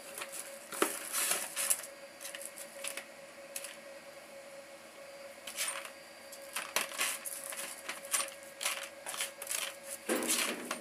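Hand rummaging through small metal parts and a plastic bag in a cardboard box, with irregular bursts of clinks and rustles. A steady hum runs underneath.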